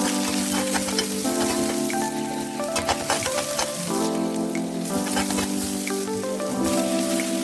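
Food frying and sizzling in a hot pan, with scattered crackles and pops, under background music of held notes that change every second or so.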